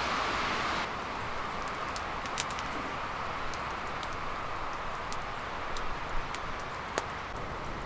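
Woodland ambience: a steady soft hiss with a few scattered small ticks and taps. The hiss changes and quietens about a second in.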